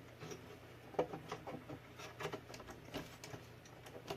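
Faint, scattered clicks and taps of an RC crawler's hard body and front bumper being handled and pressed into place, the sharpest about a second in, while a part will not sit flush.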